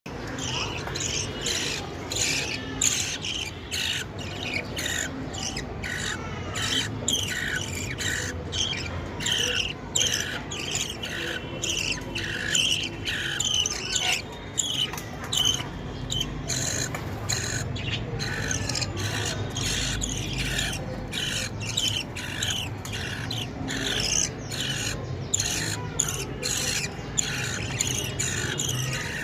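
Baby birds cheeping, rapid repeated high chirps several a second, unbroken throughout.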